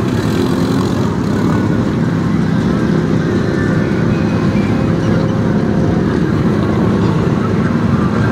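ATV engine running steadily under load as the four-wheeler ploughs through deep mud and water.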